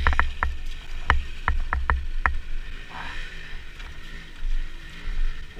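A series of sharp knocks and clatters, about eight in the first two and a half seconds, as a dirt bike is hauled by hand over logs across a muddy ditch. A low rumble runs underneath, with a brief splash-like hiss about three seconds in.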